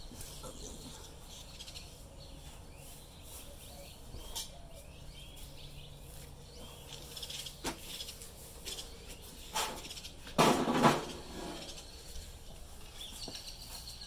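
Outdoor ambience with faint bird chirps and a few light knocks. About ten seconds in comes a louder clatter lasting under a second, from handling the charcoal and cast-iron cookware.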